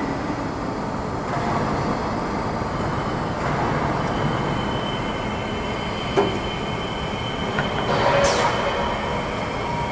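Steady mechanical noise of a CNC sheet-metal folding machine running in a workshop, with a sharp click about six seconds in and a brief rush of noise a little after eight seconds, as the machine starts its programmed move.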